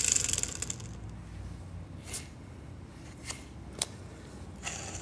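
Kawasaki Ultra 150 two-stroke crankshaft being turned by hand, its connecting rods and bearings rattling metallically for about a second, then a few separate metal clicks.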